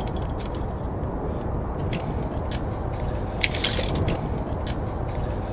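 Light metallic clicks and clinks of a nut and washers being threaded by hand onto a bolt through a metal mounting plate, several of them close together near the middle. A steady low rumble of background noise runs underneath.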